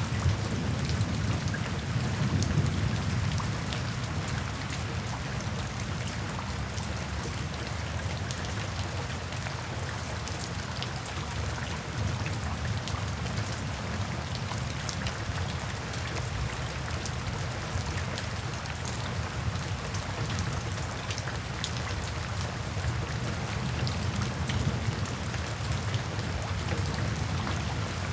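Steady rain drumming on a tin roof, with many separate drops ticking on the metal over a low rumble that swells in the first few seconds and again near the end.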